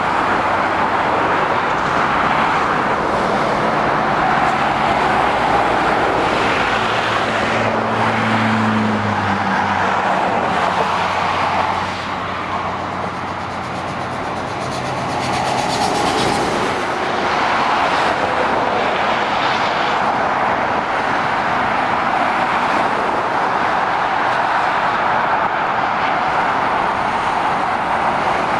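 Dual-carriageway motorway traffic: a continuous rush of tyre and engine noise from lorries and cars driving past. A low engine drone stands out for roughly the first ten seconds, and the noise eases a little just before halfway.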